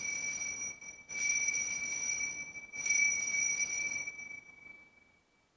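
Altar bells (Sanctus bells) shaken three times about a second and a half apart, each shake a jangle with a lingering high ring that fades away about five seconds in. They mark the elevation of the consecrated host.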